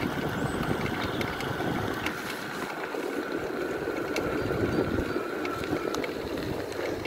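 Brushless front hub motor of an e-bike conversion kit whining steadily under throttle at top speed with no pedalling, over tyre noise on the path and wind on the chest-mounted microphone. The whine stops about six seconds in.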